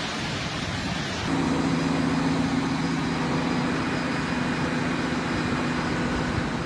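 Storm wind and rain rushing steadily, with a steady low engine-like drone joining about a second in and fading near the end.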